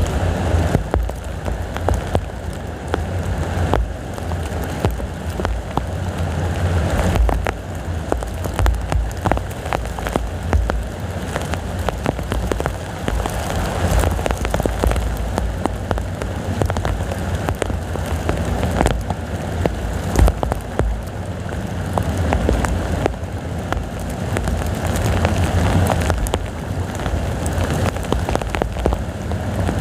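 Heavy rain pouring down steadily, with many close drops striking, and strong wind rumbling low underneath in surges that swell and ease.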